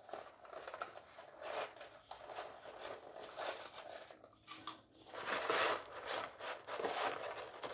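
Paper food packaging being handled, crinkling and rustling in a run of small irregular crackles, with a few short louder patches about five seconds in.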